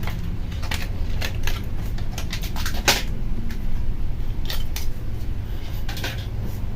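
Scattered small clicks and light scrapes of a laptop RAM module being handled and fitted into its memory slot, the sharpest click about three seconds in, over a steady low hum.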